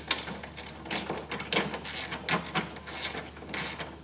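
Hand ratchet clicking in repeated short strokes as it drives a Loctite-coated ARP bolt through a motorcycle footpeg and its clevis mount.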